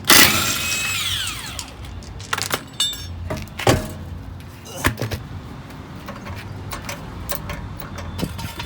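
Impact wrench taking the lug nuts off a car wheel: a loud burst at the start with a whine that falls in pitch as the tool spins down, then several short bursts and sharp metallic clicks.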